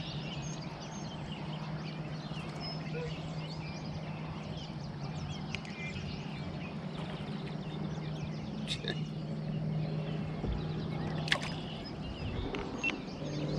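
Outdoor ambience with animal calls: many short high chirps scattered throughout over a steady low drone, with a few sharp clicks, the strongest about 11 seconds in.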